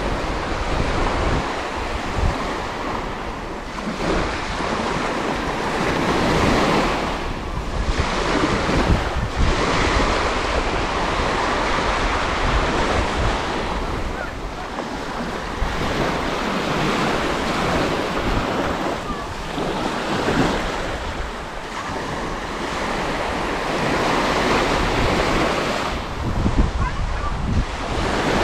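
Small waves breaking and washing up a sand beach, swelling and easing every few seconds, with wind rumbling on the microphone.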